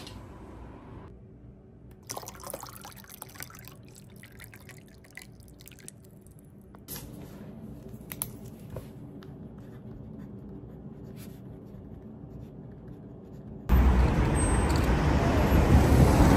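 Quiet room sound with a steady low hum and scattered small clicks and taps. About three-quarters of the way through it cuts to loud city street traffic noise.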